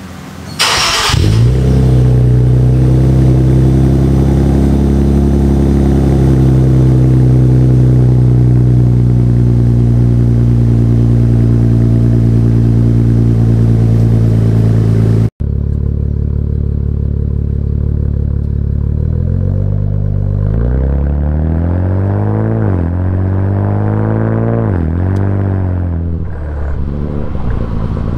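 Infiniti Q60 twin-turbo V6 through an unresonated Fast Intentions catback exhaust with lower downpipes, on a cold start: the starter catches about a second in and the engine settles into a loud, steady fast idle. After a sudden cut about halfway through, the same exhaust is heard from the tailpipe while driving. The revs climb and fall, dropping sharply twice as it shifts up.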